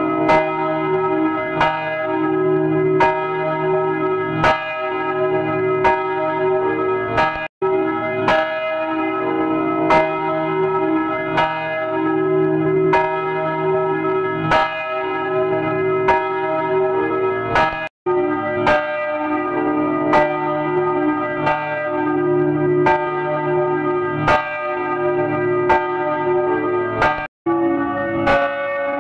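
Church bells ringing: strikes repeating about every three-quarters of a second over a sustained wash of ringing tones. The sound cuts out briefly three times, about a quarter, about two-thirds and near the end of the stretch.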